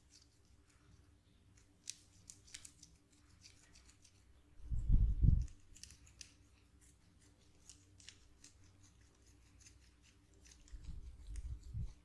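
Close-up ASMR massage sounds: a scatter of small sharp clicks and crackles, with a heavy low thump about five seconds in and a low rumble near the end.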